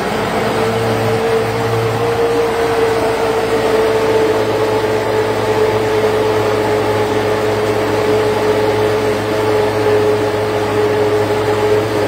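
Commercial countertop blender running at high speed, blending a thick fruit and spinach smoothie: a loud, steady whir with a strong hum whose pitch sinks slightly as it runs.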